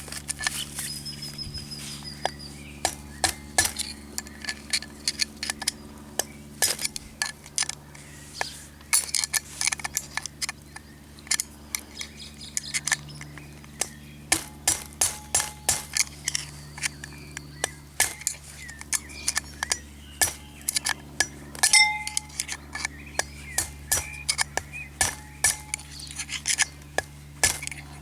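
A hammer striking a steel drift set against the worn rear wheel bearing's race inside the hub, knocking it out. Many sharp metallic clinks, in irregular runs of quick strikes with pauses between.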